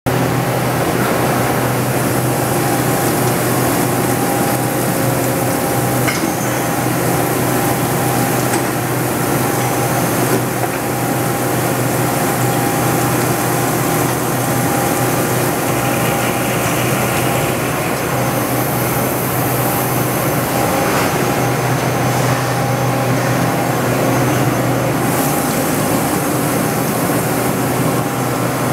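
Matsuura MC-760V2 CNC vertical machining center milling under flood coolant: a steady machine hum with the hiss of coolant spraying over the cutter.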